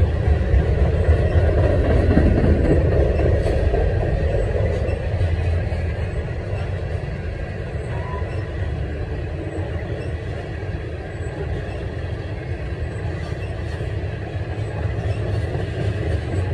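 Freight train of tank cars rolling past close by: a steady low rumble of steel wheels on the rails, a little louder for the first few seconds and then even.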